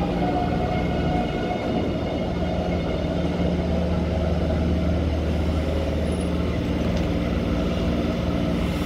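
Taipei Metro Bannan line train pulling in behind platform screen doors and slowing to a stop, a steady electric hum and whine over the rolling rumble of the train.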